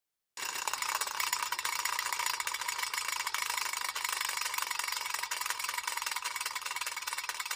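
Toy spinning top spinning, a steady whirring rattle that starts about half a second in.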